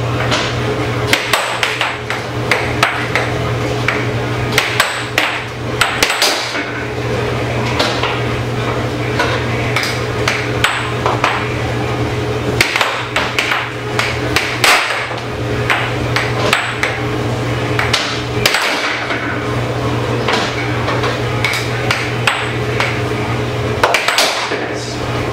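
Air hockey puck clacking off plastic mallets and banging against the rails of a Tornado air hockey table in quick, irregular strikes, some in rapid clusters. Under it runs the steady hum of the table's air blower.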